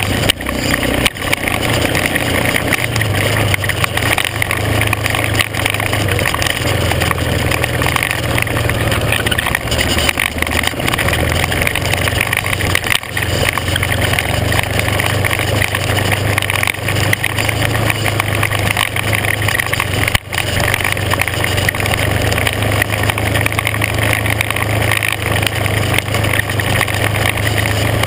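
Off-road vehicle engine running steadily as it drives along a rocky dirt trail, with a low steady drone under a constant rush of wind and gravel noise.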